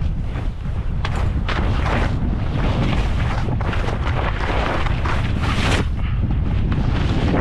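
Wind buffeting the microphone as a skier descends, a heavy low rumble, with short hissing scrapes of skis over the snow coming every half second or so.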